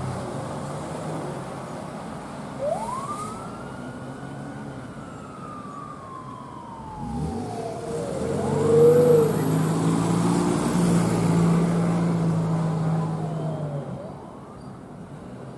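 Fire engine's siren sounding one long wail, rising quickly and then falling slowly over several seconds, followed by a short chirp about nine seconds in, the loudest moment. Under it the truck's engine drones steadily as it drives off, and it all fades near the end as the truck moves away.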